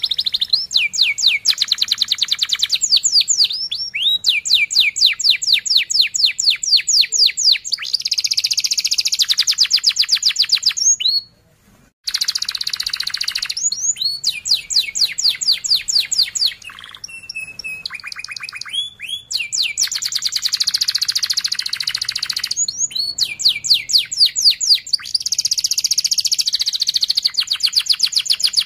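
Domestic canary singing a long, fast song of rolling trills, runs of rapid repeated notes that switch from one note type to the next. It breaks off briefly about halfway through.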